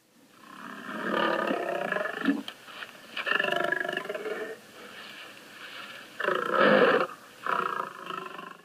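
A lion roaring, as in the MGM studio logo intro: several long roars with short pauses between them, the loudest about two-thirds of the way through.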